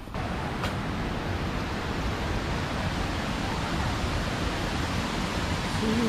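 Steady rushing roar of a waterfall, an even wash of water noise with no distinct events.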